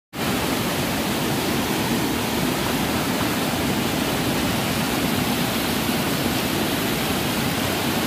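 Waterfall: water pouring down steadily in a dense, even rush.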